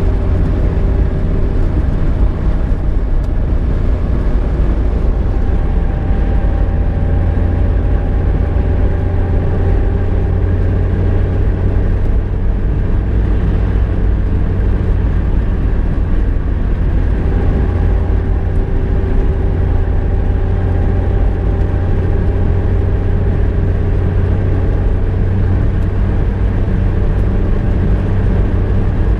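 Car driving along steadily: a constant deep rumble of engine and road. Faint engine tones come in twice and fade again.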